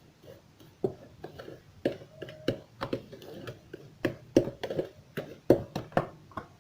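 Irregular clicks and knocks against a mixing bowl as basbousa mix, ghee and yogurt are stirred together lightly, one knock about two seconds in ringing briefly.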